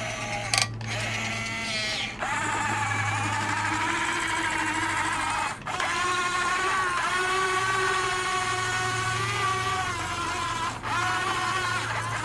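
Electric motors of a Huina 15-channel RC excavator whining as it digs, the pitch rising and falling as movements change. There are several short breaks where one movement stops and the next starts.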